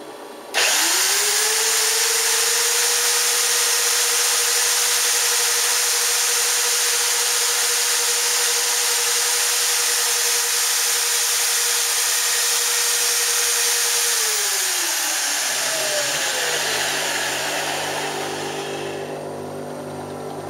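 CNC router's spindle motor starting up with a quick rising whine, then running at a steady high pitch over a loud hiss. Near the end it winds down with a falling pitch, leaving a lower buzzing hum.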